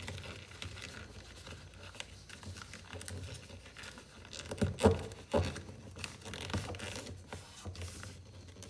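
Sheet of A4 paper rustling and crinkling as hands fold it and press the creases flat, with a few louder crackles about five seconds in.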